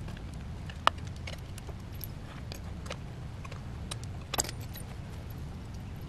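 Light metallic clicks and clinks of a Park Tool PW-5 pedal wrench and a pedal being unscrewed from a BMX crank arm, with a sharp click about a second in and a louder clatter about four seconds in, over a steady low rumble.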